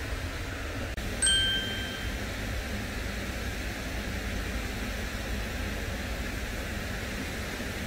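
Steady outdoor background noise, a hiss over a low rumble. About a second in, a single short bright chime rings out and fades within a second.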